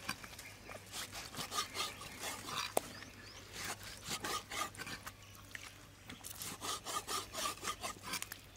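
Metal cleaver cutting through raw beef honeycomb tripe onto a wooden chopping board: a quick run of cutting strokes, about three or four a second, with a short pause a little after the middle.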